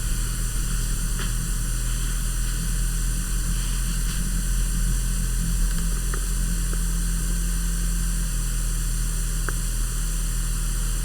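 Hunter Builder Plus ceiling fan running steadily on medium speed: a constant low hum under a wash of noise, with a few faint ticks.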